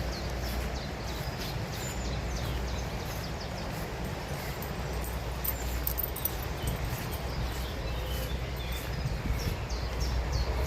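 Several small songbirds chirping and singing in short, quick phrases throughout, over a steady low rumble.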